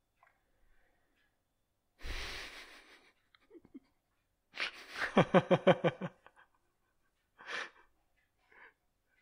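A person's breath blowing hard into the microphone about two seconds in, then a short run of pulsing laughter, about eight quick pulses, with a couple of faint breaths after.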